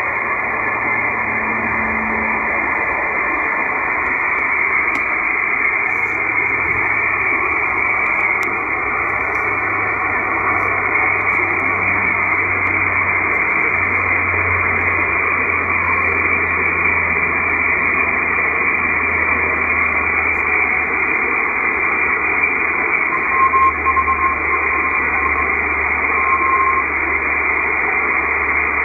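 Shortwave receiver hiss and band static from a Malachite DSP SDR tuned to 14099 kHz upper sideband on the 20-metre band. Near the end a faint Morse tone keys on and off for a few seconds: a weak NCDXF propagation beacon coming through the noise.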